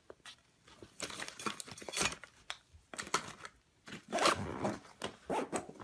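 Zipper on a Maxpedition Falcon II backpack's main compartment being pulled along in several short rasps, with the rustle and knocks of gear, including a metal water bottle, being stuffed back inside.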